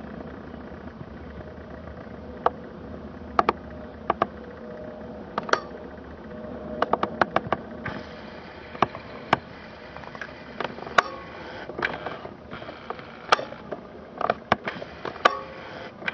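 Steady distant engine hum with a faint steady tone, broken by irregular sharp clicks and ticks that are the loudest sounds, coming in small clusters.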